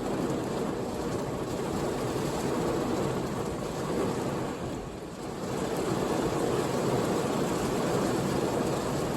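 Heavy rain drumming steadily on a car's roof and windscreen, heard from inside the car; it eases briefly about halfway through, then picks up again.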